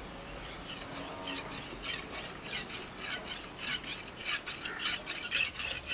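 Curved sickle-like steel blade being sharpened on a flat stone: a rapid back-and-forth scraping, about three strokes a second, growing louder toward the end.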